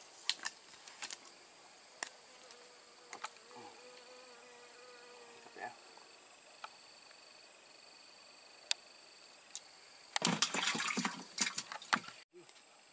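Insects droning in a steady, high-pitched buzz with scattered small clicks. About ten seconds in comes a couple of seconds of crackling rustle, the loudest sound here, which cuts off suddenly.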